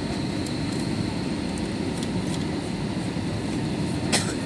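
Steady low roar of an Airbus A321's engines and airflow heard inside the passenger cabin during the descent to land, with a faint high steady tone over it. A brief sharp sound about four seconds in.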